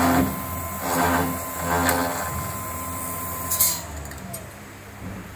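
PTX500S copy router's variable-speed spindle running with a steady whine while routing an aluminium profile. About three and a half seconds in comes a short burst of hiss, and then the whine falls in pitch as the spindle slows.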